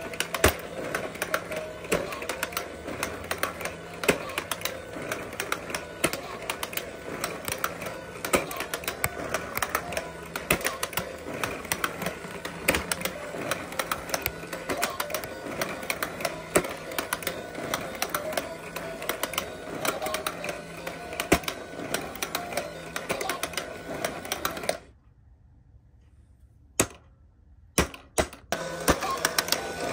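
Plastic Whack-a-Mole toy being played: a red plastic hammer clacks on the pop-up moles several times a second over the toy's steady electronic tune. About 25 seconds in everything stops for around three seconds, broken by a few lone clicks, then the tune and clacking start again.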